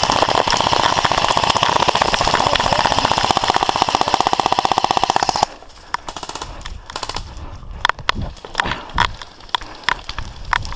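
Airsoft gun firing a long full-auto burst, a fast even rattle of shots that stops suddenly about five and a half seconds in; then scattered single shots and clicks.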